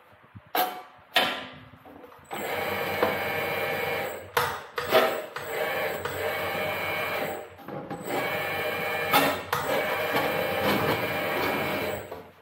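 A small power tool's motor running in three stretches of a few seconds each, with sharp knocks between and before them.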